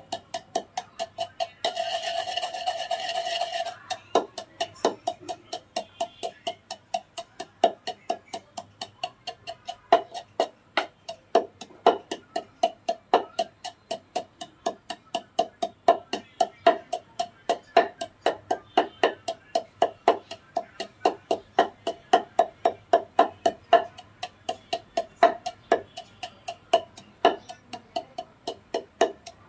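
Wooden pestle pounding naphthalene balls into fine powder in a wooden mortar: a steady run of dull knocks, about three a second. About two seconds in, a steady hissing sound with a held tone runs over the strokes for about two seconds.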